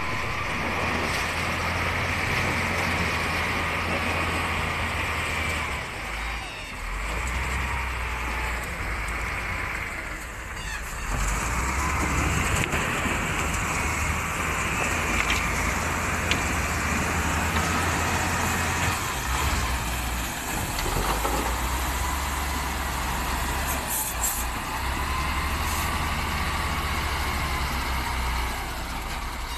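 Dump truck's diesel engine running steadily as the truck drives through shallow water, a low drone that grows a little louder before halfway.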